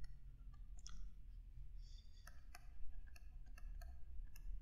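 Faint, irregular clicks and taps of a stylus tip on a tablet while handwriting, with a few short scratchy strokes among them.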